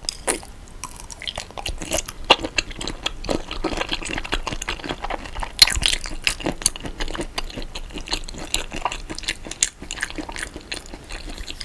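Close-miked wet chewing of marinated raw shrimp: many quick, soft, squelching clicks in an irregular stream.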